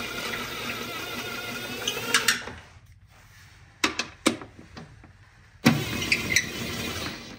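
Snap-on impact driver running bolts in to tighten them: two runs of steady motor whine, the first about two and a half seconds, the second just under two seconds, with two sharp clicks between them.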